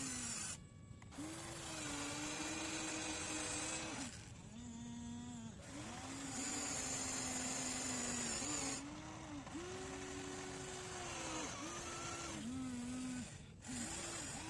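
RC excavator's motor whining while it digs, its pitch stepping up and down every second or two with brief dips as the machine changes movement.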